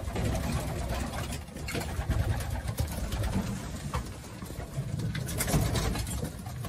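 Racing pigeons cooing in a low, pulsing murmur, with a few light knocks.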